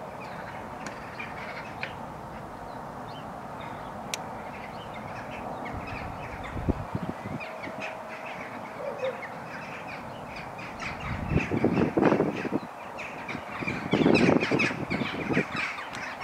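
Crow cawing in two bursts of harsh calls, about twelve seconds in and again a couple of seconds later, over small birds chirping and a steady background hiss.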